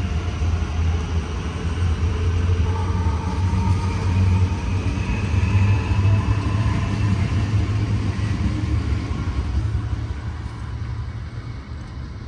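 V/Line VLocity diesel multiple unit running with a loud, steady low rumble and a faint whine above it, dying away over the last couple of seconds.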